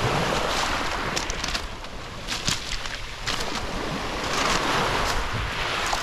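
Small Black Sea waves washing onto a pebble beach. The rush of surf swells at the start and again about four seconds in, with sharp clicks of pebbles over it.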